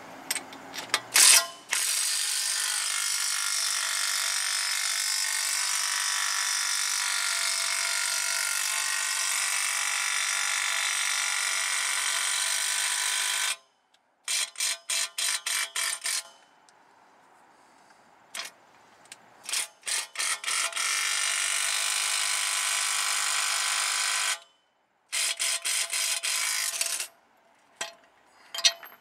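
Cordless impact wrench driving the forcing screw of a C-frame ball joint press to seat a new upper ball joint in the control arm. It runs steadily for about eleven seconds, then gives short bursts of rapid clicks, runs steadily again for about four seconds, and ends with another burst of clicks.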